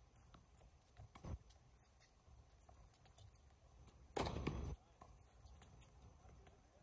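Faint tennis rally on a hard court: scattered sharp ticks of racket strikes and ball bounces, a small knock about a second in, and a louder half-second noise with a sudden start about four seconds in.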